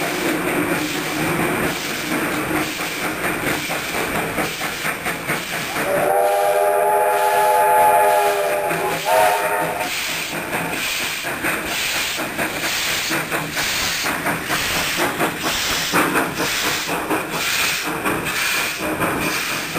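NSWGR C17 class steam locomotive working hard up a grade, with a steady beat of exhaust chuffs. About six seconds in it sounds its steam whistle: one long blast of nearly three seconds and then a short one straight after. Its passenger carriages roll past near the end.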